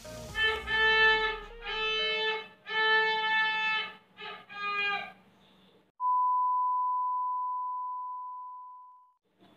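Short outro jingle of held musical notes, then a single steady high tone that sounds for about three seconds and fades away.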